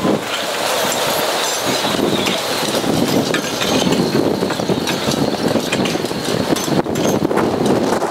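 Strong storm wind rushing and buffeting the microphone, with scattered knocks and clatter through it.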